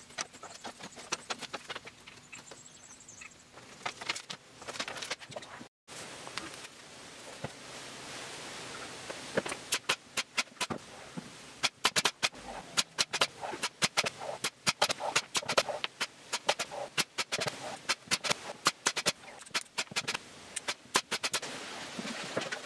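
Light knocks as thin pine strips are handled on a plywood box. Then, from about six seconds in, a pneumatic brad nailer firing again and again, a quick run of sharp clacks as the strips are nailed down.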